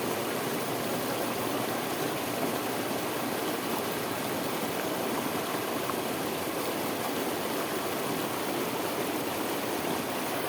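Steady, unbroken rush of fast-flowing water pouring over a waterfall.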